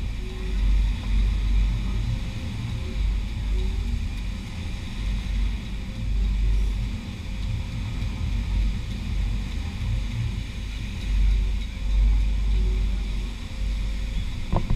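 Wind buffeting the microphone, a low rumble that swells and fades in gusts, over a steady hiss of surf breaking on the beach. A short knock at the very end.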